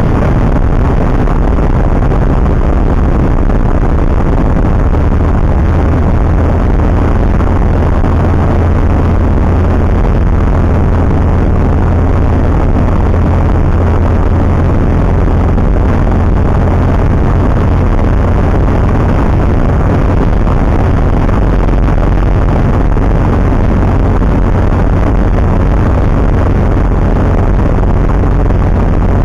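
Single-engine light aircraft's piston engine and propeller droning steadily in flight, heard from inside the cabin as a loud, even low hum with rushing noise over it.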